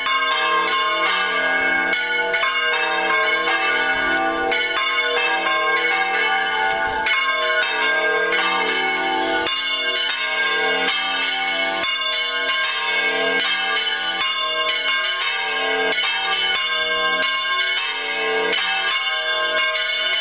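Lluc Monastery's church bells ringing in a continuous peal. Many strikes follow close on one another, so their tones overlap and blend.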